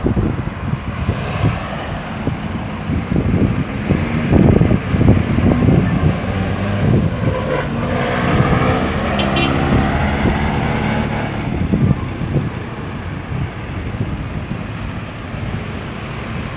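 Road traffic circulating at a busy roundabout: cars and heavier vehicles passing continuously, with one engine's note rising and then falling near the middle as it goes by.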